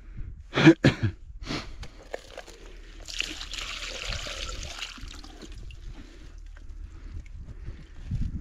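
Water tipped out of a small plastic container onto snow beside an ice-fishing hole, running for about two seconds around the middle. Two short sharp knocks come just under a second in.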